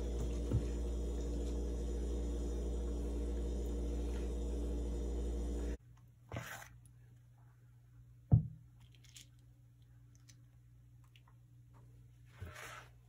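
A steady low hum with several pitched tones, cut off abruptly about halfway through. After it come quiet handling sounds as muffin batter is ladled into paper cups in a metal muffin tin: a soft squish of batter and one sharp low thump about eight seconds in.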